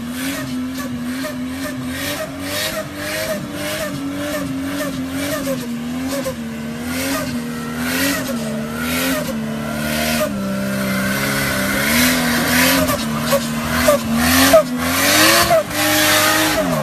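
Four-wheel-drive engine revving hard under load while the tyres spin and claw up a rutted track, its pitch rising and falling over and over, with regular knocks about twice a second. The revs drop away sharply near the end.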